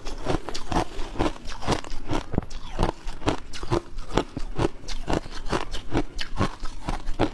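Shaved ice being chewed close to a clip-on microphone: a steady run of crisp crunches, about three a second.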